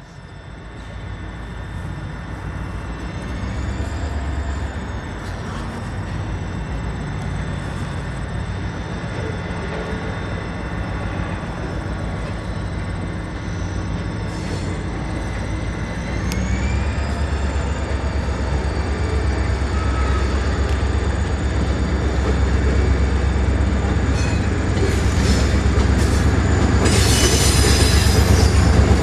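EMD 645 diesel prime mover of a freight locomotive running, a heavy low rumble that grows steadily louder, with a brief rising whine about sixteen seconds in. A high hiss comes in near the end.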